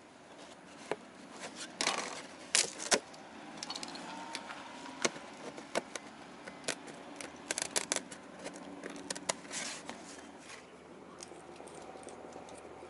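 Tin snips cutting a disc out of thin plywood: an irregular run of sharp snaps and crackles as each bite goes through the wood, some in quick bursts.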